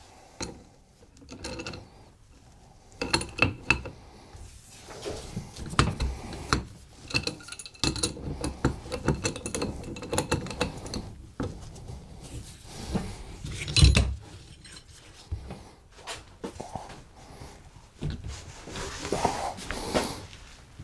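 An adjustable wrench and an extension bar clinking, scraping and knocking against a steel power steering rack as its inner tie rod is turned loose, in irregular bursts of metal-on-metal clatter. A louder metal knock comes about two-thirds of the way in.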